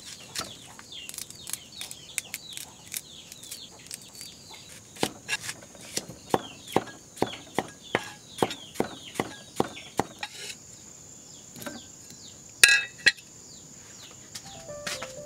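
A heavy knife chopping vegetables on a wooden log chopping block, the blade knocking through onto the wood in regular strokes, about two a second at its steadiest. Small chirping calls and a steady high insect-like hum sound behind it, and one louder sharp clink comes about twelve seconds in.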